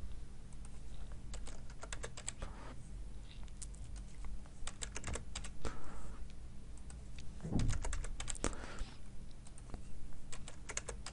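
Computer keyboard typing in short bursts of quick keystrokes, one word at a time, with pauses between the bursts.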